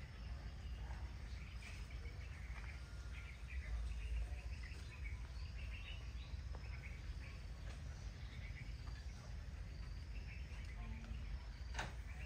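Outdoor yard ambience: birds chirping and insects calling over a steady low rumble, with one sharp click near the end.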